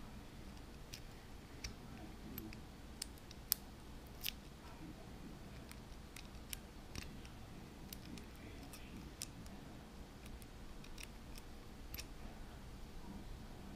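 Faint, irregular small clicks from the number dials of a Master Lock M175 combination padlock being turned one step at a time while a thin pop-can shim is held down beside them, feeling for the deeper groove that marks the code digit. Two of the clicks, about three and a half and four seconds in, are sharper than the rest.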